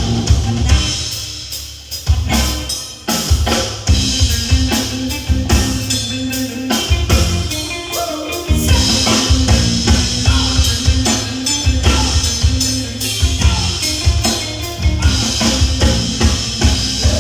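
Live band playing an instrumental passage, the drum kit prominent with kick and snare hits over a bass line; briefly quieter about one to three seconds in.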